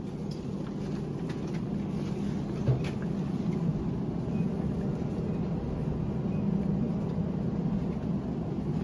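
Steady low rumble of a running vehicle, with a single short knock about three seconds in.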